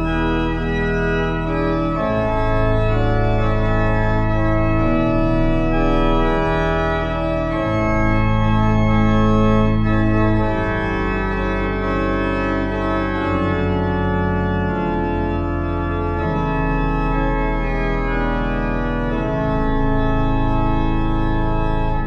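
Organ playing held chords that change every second or two.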